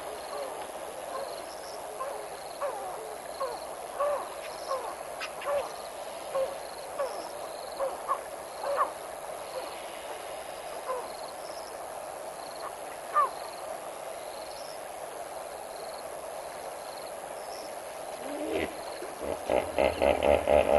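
African wild dogs twittering at a kill: many short, scattered chirping calls, some rising quickly in pitch. About eighteen seconds in, a louder, rapid series of pulsed calls begins.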